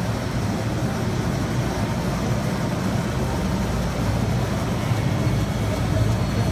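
Roll-fed intermittent and rotary label printing press running: a steady mechanical hum and rumble.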